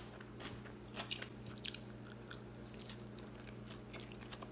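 A person chewing a mouthful of fresh kimchi close to the microphone: faint, irregular crisp crunches and small wet mouth clicks.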